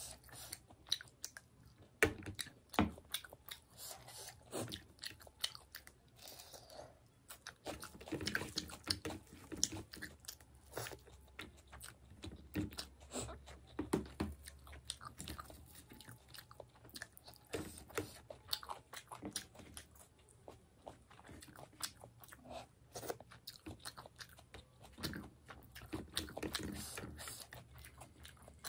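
A person eating fish curry close to the microphone: steady chewing with frequent small, irregular clicks and snaps.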